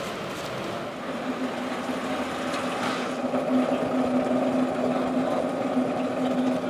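A motor or engine running with a steady hum that sets in about a second in, with a short burst of clatter near the middle.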